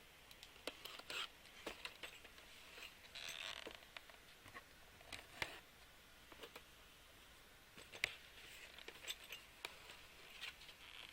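Faint, scattered clicks and short rustles of small plastic kit parts in plastic bags being handled.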